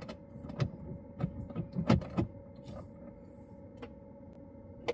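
A series of short clicks and knocks inside a car cabin, the loudest about two seconds in, over a steady hum.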